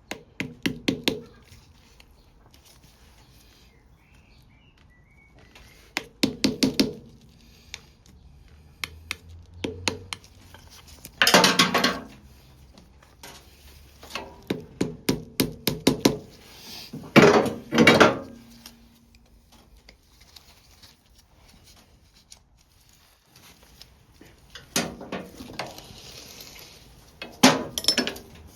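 Hand tools and metal motorcycle parts clinking and clattering in short bursts, some of them quick runs of clicks, about seven bursts in all with quiet gaps between.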